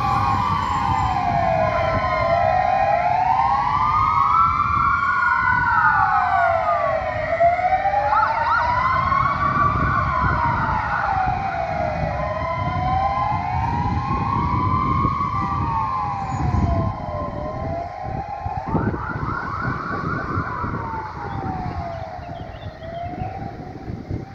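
Fire engine sirens wailing in a slow rise and fall, about one sweep every five seconds, with more than one siren overlapping. About eight seconds and again about nineteen seconds in, bursts of steady air-horn tones come in. The truck diesels rumble underneath, and everything fades as the column drives away.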